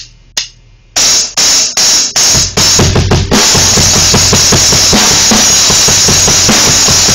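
Acoustic drum kit played with sticks: a few sharp, separate strikes about half a second apart, then heavier hits that build after about two and a half seconds into loud, continuous full-kit drumming with bass drum, snare and cymbals.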